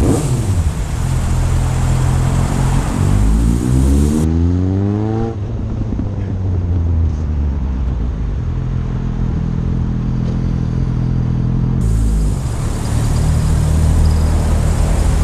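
Motorcycle engine running as the bike filters through slow traffic: the revs drop at the start, climb steeply about three to five seconds in, then settle to a steady run and dip again near the end.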